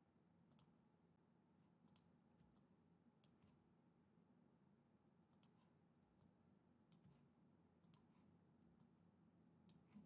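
Faint computer mouse clicks, seven single clicks spaced a second or two apart, over a faint steady hum.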